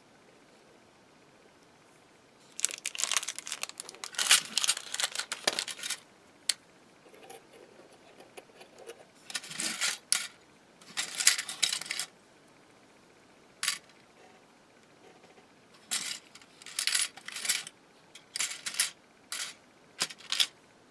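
Small metal embellishments clinking and crinkly plastic packaging rustling as they are handled, in several irregular bursts with a sharp click or two between them.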